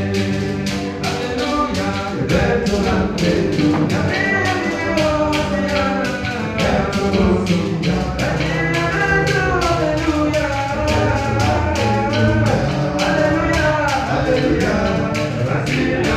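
A group of men sing into microphones, amplified, with the lead voice carrying the melody over a steady drum beat.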